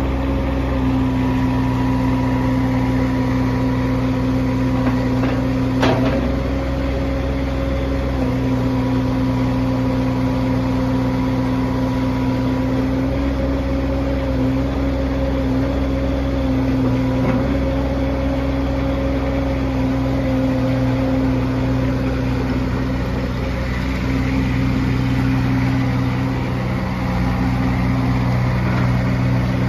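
Boxer 532DX walk-behind track loader's 32 HP Kubota diesel running steadily, its note shifting slightly now and then. A sharp click about six seconds in and a fainter one later.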